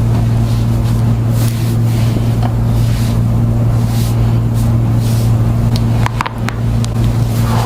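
A loud, steady low hum, with a few short clicks about six seconds in.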